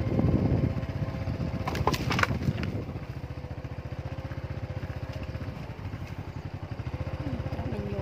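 Small motorcycle engine running at low speed, a steady fast pulsing chug. A brief burst of crackling comes about two seconds in.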